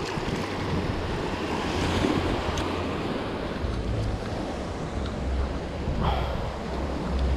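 Wind buffeting the microphone in uneven low rumbles over the steady wash of sea waves.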